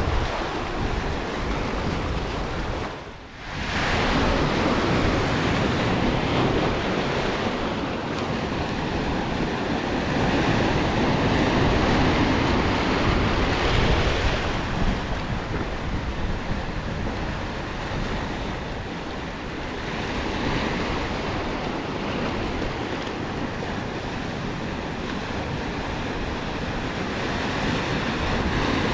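Ocean surf breaking and washing over a rocky shore, swelling and easing, with wind buffeting the microphone. The sound drops away briefly about three seconds in.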